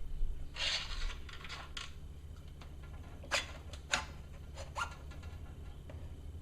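Parts of an outdrive water pump being handled and worked apart by hand: a scraping rub about half a second in, then a few sharp clicks and taps of small metal and plastic parts, over a steady low hum.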